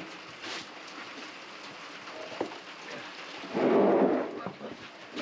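Rain falling steadily, with a louder noisy surge lasting about half a second roughly three and a half seconds in.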